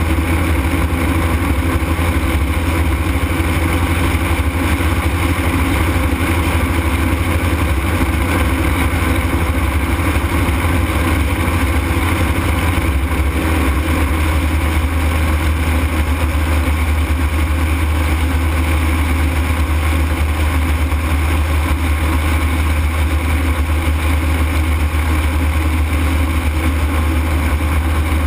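Ultralight aircraft's engine running steadily in flight. Its low note shifts slightly about halfway through.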